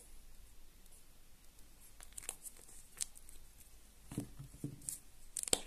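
Light handling noises: a few small clicks from about two seconds in, then soft knocks of a spoon and small bottles against a glass bowl and countertop, the clearest near the end.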